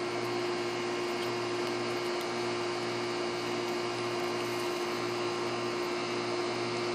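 Steady hum with one constant tone over an even hiss, unchanging throughout.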